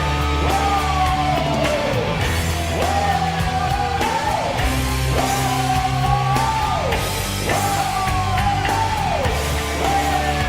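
Hard-rock goal song with electric guitar and singing, a short phrase that falls in pitch repeating about every second and a half over a steady bass.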